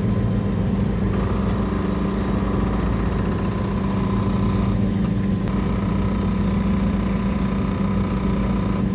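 A boat's engine running steadily: a low, even drone with a strong hum near the bottom.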